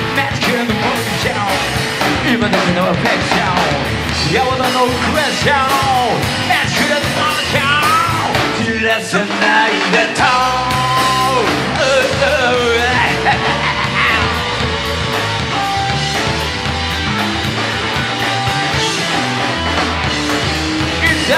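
Live rock band playing loud: electric guitar, bass guitar and a Yamaha drum kit, with a male singer shouting and singing over them. About nine seconds in the bass and drums drop out for about a second, then the band comes back in under held guitar or vocal notes.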